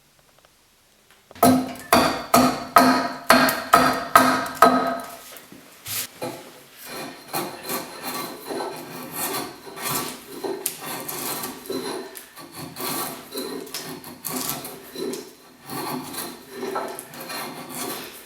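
Small diamond sharpening stone stroked against an axe edge. About a second and a half in, it starts with quick, loud strokes, two or three a second, that make the steel axe head ring. It then goes on as quieter, steady rubbing strokes.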